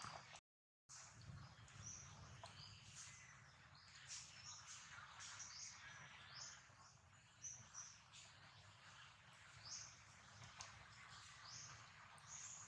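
Faint outdoor ambience of small birds chirping: many short, high chirps scattered throughout over a low hum, with a brief dropout to silence about half a second in.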